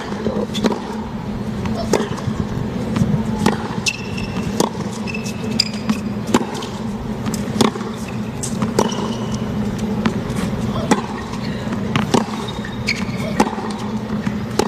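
Tennis ball struck back and forth in a rally on a hard court, a sharp pock about once a second, with short high shoe squeaks now and then over a steady stadium crowd murmur.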